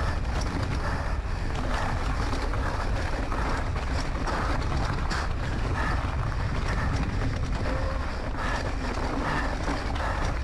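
Wind buffeting the microphone at riding speed, with a rider's heavy breathing in short, repeated breaths.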